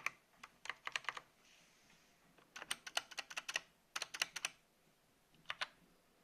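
AOC GK500 mechanical keyboard with linear Outemu Red switches being typed on: several quick bursts of keystrokes separated by short pauses.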